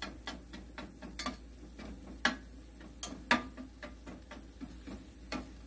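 Irregular light clicks and taps, a few a second, some with a short metallic ring, from a stainless steel pan of ground chicken cooking on the stove as it is worked over by hand.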